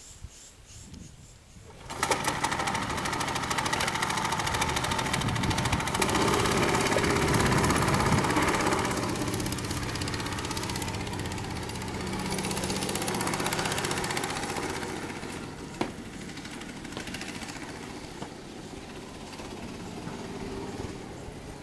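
Small go-kart engine running at high revs as the kart drives round the track. It starts abruptly about two seconds in, is loudest around six to nine seconds in, then fades as the kart moves away.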